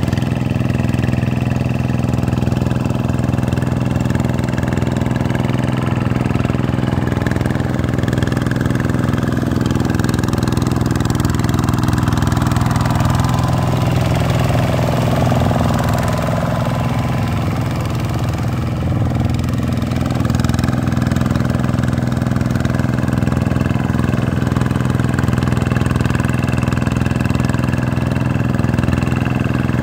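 Vikyno RV 125-2 two-wheel tractor's single-cylinder diesel engine running steadily as it pulls its cage wheels through the mud of a flooded paddy field.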